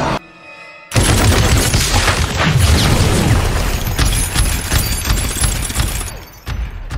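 Rapid machine-gun fire from a tripod-mounted gun in a TV drama's soundtrack, a dense run of shots under a music score. It starts about a second in after a brief drop in sound and thins out near the end.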